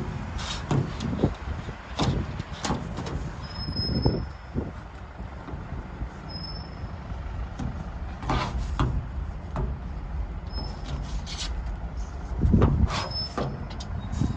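Low steady rumble of a large road vehicle such as a bus or truck, with irregular knocks and crunches and a few brief high squeaks.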